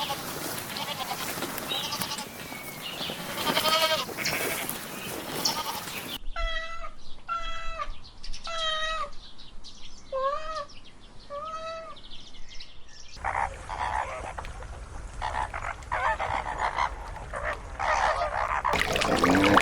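Short, high-pitched bleats from a young farm animal: a wavering bleat amid rustling noise, then five clear bleats spaced about a second apart, each rising and falling, followed by a stretch of rustling.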